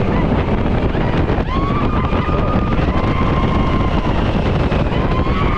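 Wind buffeting the microphone and a steady rumble as the open Radiator Springs Racers ride vehicle travels at speed. A few high, drawn-out cries of about a second each ride over it, about one and a half, three and five seconds in.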